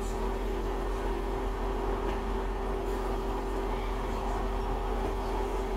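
Class 150 Sprinter diesel multiple unit heard from inside the carriage: a steady engine and equipment drone with a constant mid-pitched hum.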